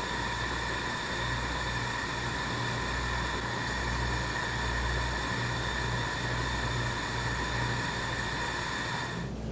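Steady hiss and low rumble of the launch-day broadcast audio track between radio calls, with two faint steady high tones. The hiss thins out shortly before the end.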